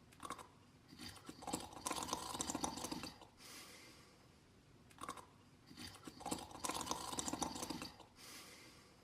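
Slow, steady snoring: two long, crackly inhalations of about a second and a half each, roughly four and a half seconds apart, with short, softer breaths in between.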